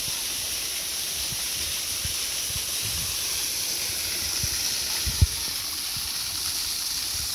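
Steady rushing of running water, with a few soft low bumps and one sharper thump about five seconds in.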